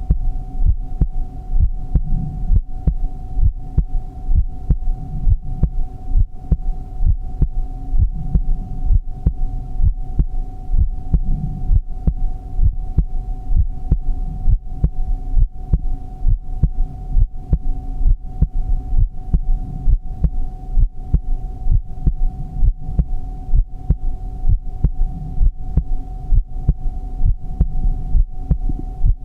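Heartbeat: regular low thumps, a little more than one a second, at an even pace under a steady hum.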